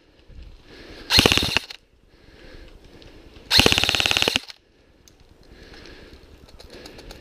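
Airsoft rifle firing two full-auto bursts of rapid shots: a short burst about a second in, then a longer one of about a second near the middle.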